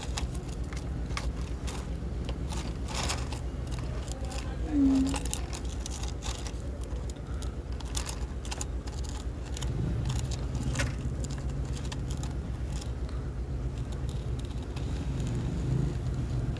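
A small motor running with a steady low hum, while parts are handled with scattered clicks and scrapes.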